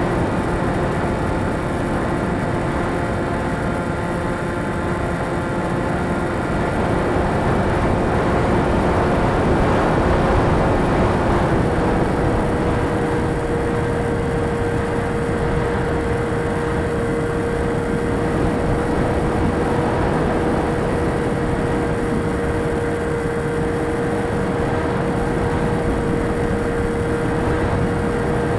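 Radio-controlled model plane in flight, heard from its onboard camera: a steady motor-and-propeller drone over wind rush. About twelve seconds in, the pitch steps up and then holds, as the throttle is opened.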